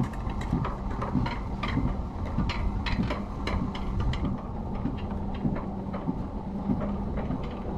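Alpine coaster sled being hauled slowly up its lift section: a steady mechanical hum with a low tone, and irregular clicks about twice a second from the lift drive and track.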